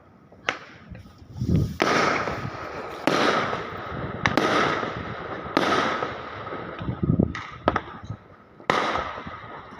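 Fireworks bursting overhead: a string of sharp bangs, roughly one every second or so, each trailing off in echo.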